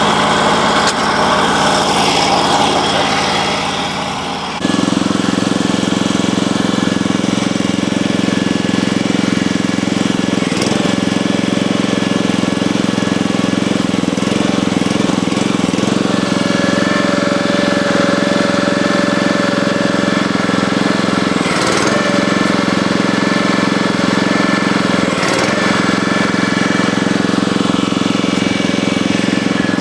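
Portable bandsaw mill's petrol engine running steadily; about four and a half seconds in it changes abruptly to a steadier, lower hum. A few sharp knocks sound over it.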